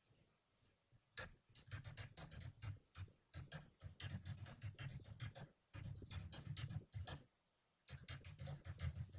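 Typing on a computer keyboard: quick runs of keystrokes starting about a second in, with two short pauses, one around the middle and one near the end.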